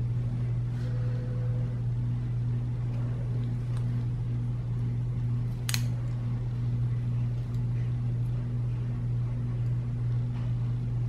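Steady low hum of a fan or room equipment, with a faint regular pulsing in it. One sharp click comes a little past halfway.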